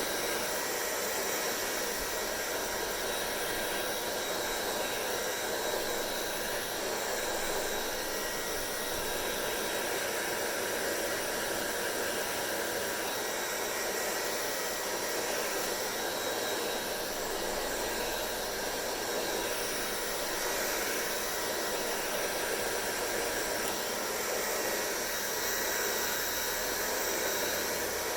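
Hair dryer blowing steadily: an even rushing hiss of air with a faint motor whine, unchanging throughout.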